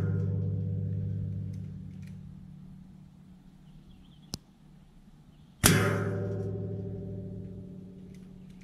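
Air-rifle pellets striking hanging steel target plates. The plate hit just before the start rings with a low, steady tone that fades over about three seconds. A single sharp click comes a little past four seconds in. A second clang about five and a half seconds in rings and slowly fades.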